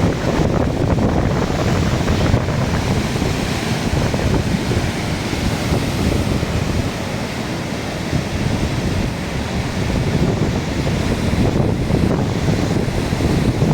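Strong wind buffeting the microphone over the steady rush of heavy surf.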